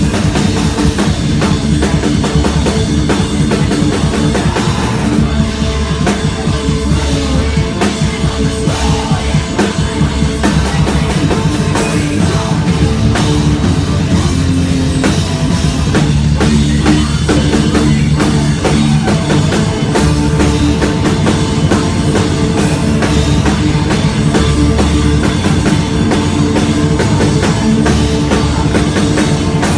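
A live post-hardcore band playing loud, with a full drum kit pounding under sustained chords.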